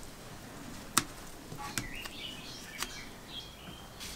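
A few sharp snips of pliers cutting at a red covering on a compressor's metal carry handle, the loudest about a second in. Small birds chirp in the background through the second half.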